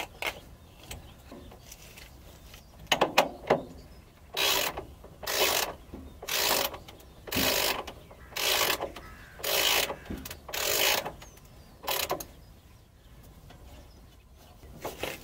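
Ratchet wrench tightening a nut on a bolt through the coop's floor plate into the trailer chassis, worked from underneath: a few sharp clicks, then about eight strokes of ratcheting, each a short burst about a second apart.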